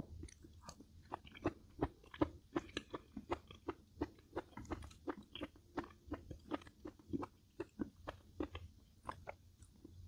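Close-miked mouth sounds of someone eating: chewing with a run of sharp, wet crunches, two or three a second.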